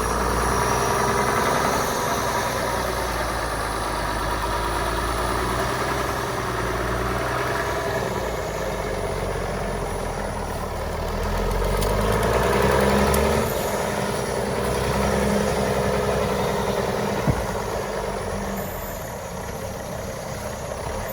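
Diesel engine of a 1957 Volvo TL22 army truck running, its speed rising and falling, louder about twelve seconds in and again a few seconds later, then easing off near the end.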